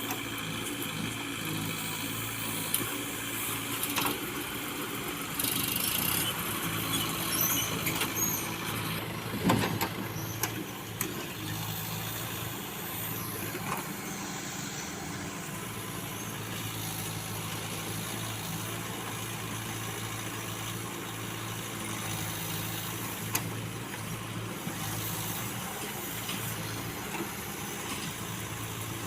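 Backhoe loader engine running steadily, with a short burst of hissing and squeaks about six to eight seconds in and one sharp knock a little later.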